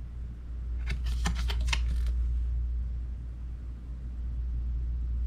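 A short run of crisp crackles and clicks from a stiff paper card being handled and turned over, about a second in, over a steady low hum.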